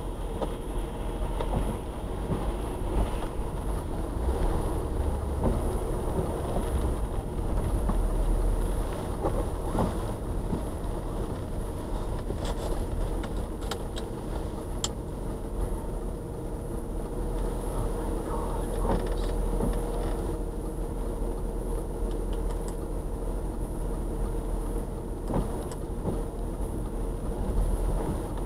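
Car engine running at idle while the car creeps along at walking pace, heard from inside the cabin: a steady low rumble with a few scattered small clicks.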